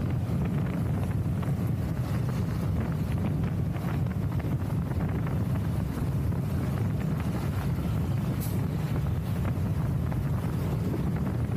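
Steady low wind rumble buffeting the microphone of a camera carried on a moving motorcycle, with road and traffic noise beneath it.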